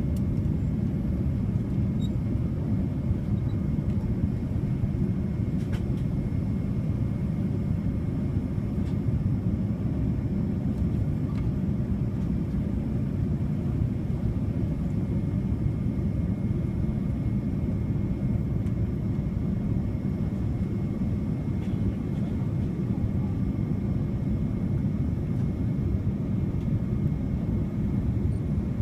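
Steady low rumble of cabin noise inside a Boeing 787-9 airliner: airflow and engine drone at an unchanging level, with a faint steady high whine over it.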